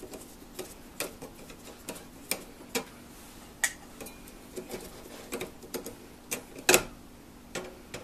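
Flat-blade screwdriver turning screws into the plastic back panel of a filmstrip viewer: irregular light clicks and ticks, with one louder knock a little after the middle, over a faint steady hum.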